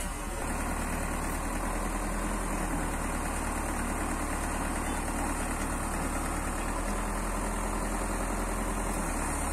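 Heavy diesel engine idling steadily, a low even hum with a slight rise in level near the end.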